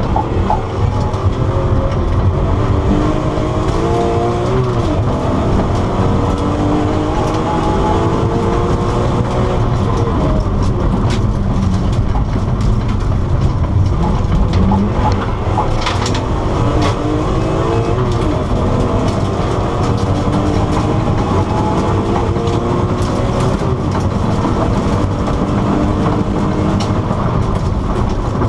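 Engine of a stripped-out BMW E46 race car, heard from inside the cabin, repeatedly revving up and dropping back as the car is driven hard through the gears. Steady road and tyre noise runs underneath, with a few sharp clicks.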